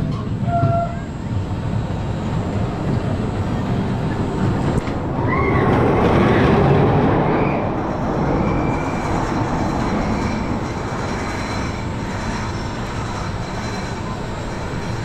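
Roller coaster train (Indiana Jones et le Temple du Péril) rumbling along its track, getting louder about five seconds in with a few brief high squeals, then easing back to a steady rumble.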